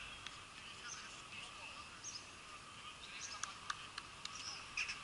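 Faint, distant voices of footballers calling across an outdoor pitch, with birds chirping and a few sharp clicks in the second half.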